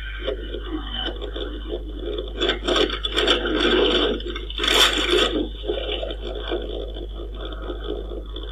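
A car crash heard from inside the vehicle: repeated bangs and crunches with scraping and rattling of the body and loose debris. The heaviest impacts come about three seconds in and again near five seconds, then the scraping dies down.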